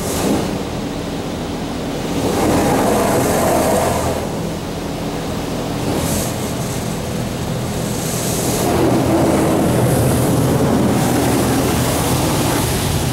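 High-pressure water jets of a LaserWash 4000 touchless car wash spraying over the car, heard from inside the cabin, swelling louder about two seconds in and again past the middle as the spray arm passes. A steady low hum runs underneath.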